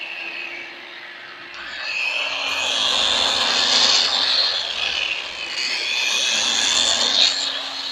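A vacuum cleaner, an electric drill and a Makita marble saw running at the same time, their electric motors making a mixed high whine over a steady hum. It grows louder about a second and a half in and wavers in pitch.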